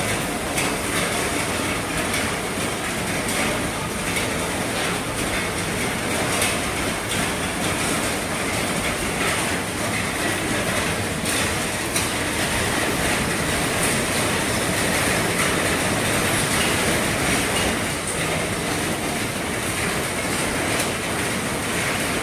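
Heavy rain on an RV's roof, falling steadily as a dense patter with many sharp drop taps.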